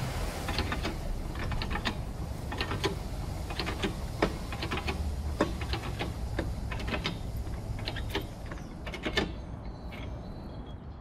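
A run of irregular small mechanical clicks and rattles, several a second at times, over a low background rumble.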